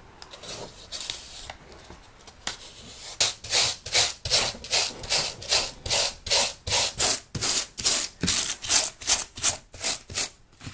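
Rigid pink extruded-polystyrene foam being scraped and gouged out by hand, a rapid rasping of repeated strokes, about three a second, that grows louder after the first few seconds.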